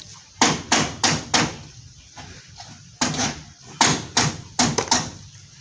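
Hammer blows in quick runs: four in the first second and a half, a single one at about three seconds, then about five more in quick succession near the end.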